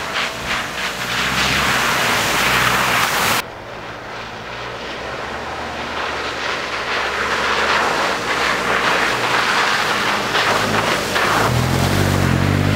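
Off-road SUV's engine running as it drives fast along a muddy track, its tyres splashing and hissing through puddles and wet mud. The sound cuts abruptly about three and a half seconds in, and near the end the engine grows louder and deeper as the vehicle passes close.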